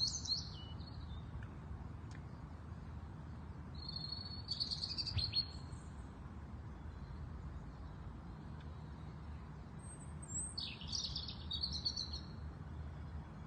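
Small birds singing and chirping in three short bursts: right at the start, about four seconds in, and again near the end, over a low steady background hum.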